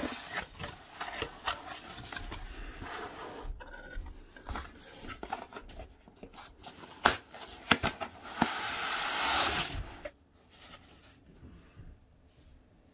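Cardboard box flaps being opened and a foam packing insert sliding against the cardboard: rubbing and scraping with a few sharp taps, then a longer sliding hiss that stops about ten seconds in.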